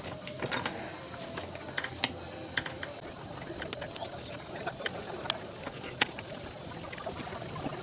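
Irregular light clicks and taps, as of small parts and tools being handled, over a steady high-pitched whine.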